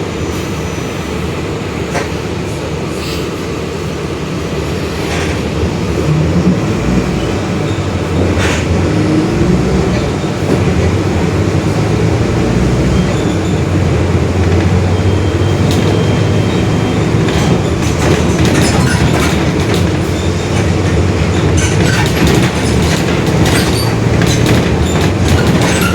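Mercedes-Benz OF-1721 Bluetec 5 bus running under way, its front-mounted four-cylinder diesel rising in pitch and getting louder about six seconds in, then holding steady. Under it runs a constant low growl from the differential, with frequent clicks and rattles.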